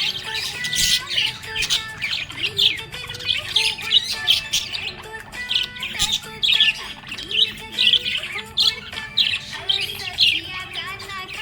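Pet budgerigars chirping in a dense, rapid stream of short high calls, over background music.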